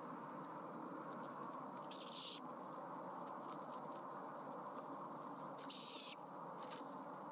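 Great horned owlets giving two short, raspy, hissing begging screeches, about two seconds in and again near six seconds, while being fed at the nest. A few faint ticks fall between them, over a steady background hiss.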